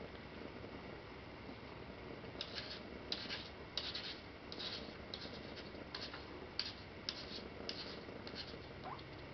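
Burmilla kitten eating dry kibble from a ceramic bowl: short crisp crunches and rattles of the dry food, about one or two a second, beginning a couple of seconds in.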